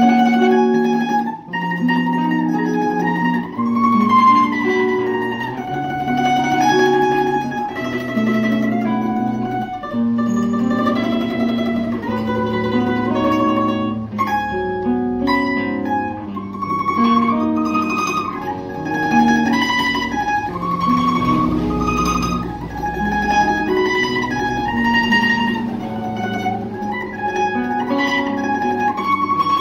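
Bandolim (Brazilian mandolin) playing an instrumental melody of quick picked notes, with lower notes moving beneath the tune.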